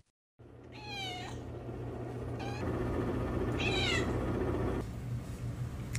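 Domestic cat meowing three times, over a steady low hum.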